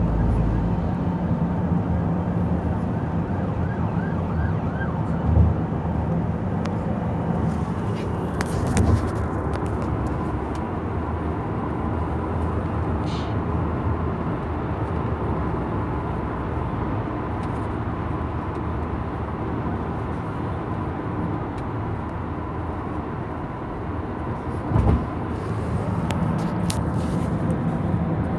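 Steady road and engine noise inside a moving car's cabin, with a low hum under it. Three short thumps stand out: one at about five seconds, one at about nine seconds, and one near the end.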